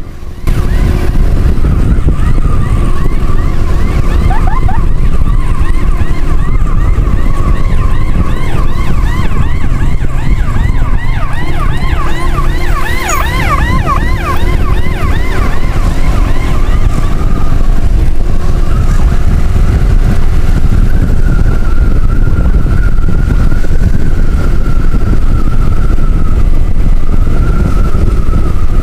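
Emergency vehicle sirens sounding over a heavy rumble of wind and engine noise from a moving motorcycle. A slow wavering wail runs throughout, and from about two seconds in to past halfway a fast yelping sweep sounds over it.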